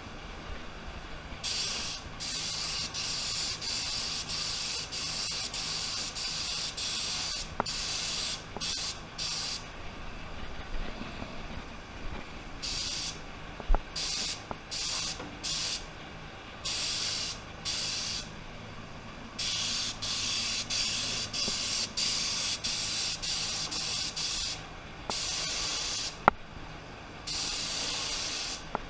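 ANI R160 mini HVLP spray gun with a 1.2 mm tip spraying black paint: a hiss of compressed air and atomised paint that starts and stops as the trigger is pulled and released. Some bursts run several seconds and others are quick short passes, with brief pauses between them.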